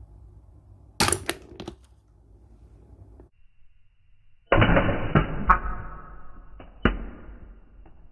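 Rubber duck toy's squeaker slowed down: a low, rough, rattling quack that slides down in pitch and fades over about three seconds, with a second, shorter push near the end. A quick run of sharp clicks about a second in.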